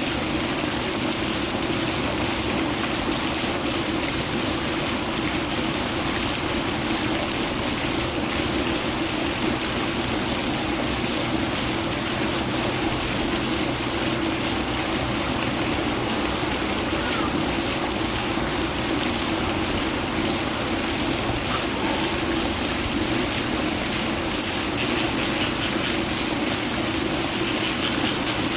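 Steady rushing noise, like running water, at an unchanging level with no clear bird calls standing out.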